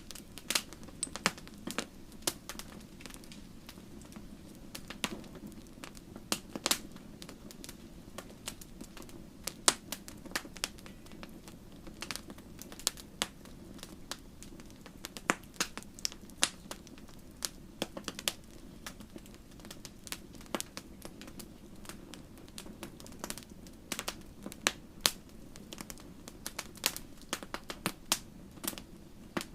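Wood fire crackling in a fireplace: irregular sharp pops and snaps, a few of them loud, over a steady low rush of the burning.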